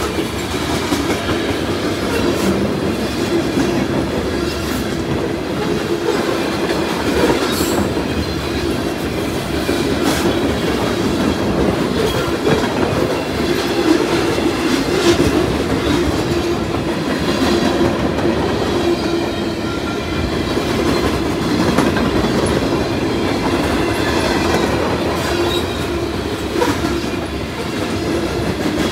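A freight train of covered hoppers and boxcars rolling past at close range: a steady rumble and rattle of wheels on rail, with the clack of wheels over rail joints now and then.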